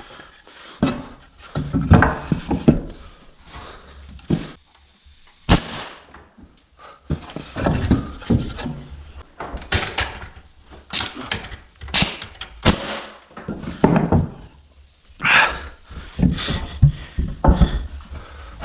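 Irregular knocks, bumps and clatter of hand work on the walls in a small room: a string of sharp impacts at uneven intervals, with a cluster of louder ones around the middle, and quieter handling noise between them.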